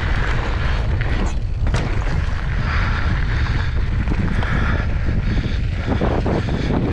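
Wind buffeting the microphone of a mountain bike's camera during a fast descent on a dirt singletrack. Under it are the tyres rolling over dirt and the bike rattling over bumps, with a couple of sharp knocks about a second and a half in and again near the end.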